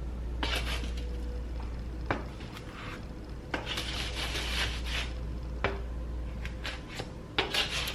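Kitchen handling sounds: dishes and utensils scraping and clinking, with a couple of sharp clicks, over a low steady hum.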